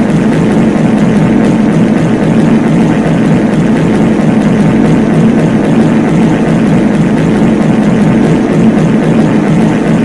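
Many copies of a reverb fart sound effect stacked on top of each other, blending into one loud, steady low drone with no gaps between them.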